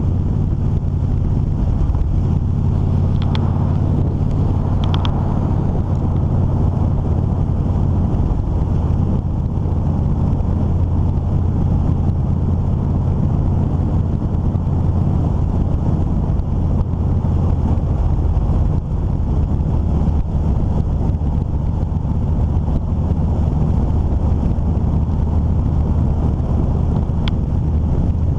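A vehicle driving steadily along a paved road: constant low engine hum and road rumble, with a few brief high squeaks about three and five seconds in and again near the end.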